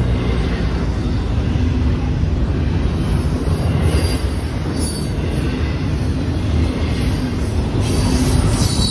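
Double-stack intermodal freight cars rolling past at close range: a steady rumble and clatter of steel wheels on rail. Brief high wheel squeals come about four seconds in and again near the end.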